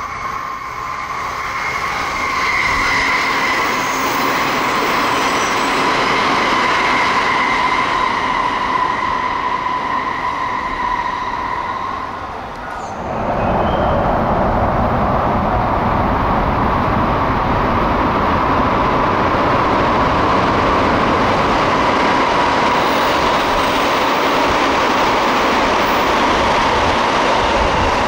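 Tsukuba Express TX-2000 series electric train running at speed, first on a curve with a steady high whine over the rush of the wheels. About 13 s in, the sound changes to a louder, fuller rush as a train runs through an underground station at about 96 km/h without stopping.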